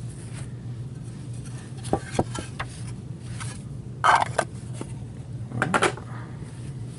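Trading cards and their plastic holders being handled: a few light clicks about two seconds in and two short louder scuffs a little after the middle and near the end, over a steady low hum.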